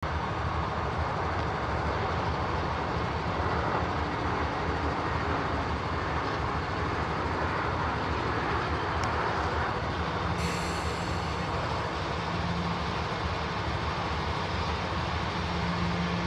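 Union Pacific diesel locomotives idling, a steady low rumble that holds without change.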